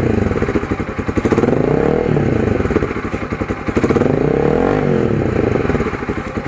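Motorcycle engine running through an Akrapovic Hexatip slip-on muffler with its silencer (dB killer) fitted, revved in several blips, each falling back toward idle. It winds down near the end.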